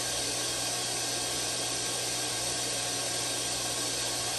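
Well pump motor running, a steady hum with a hiss over it.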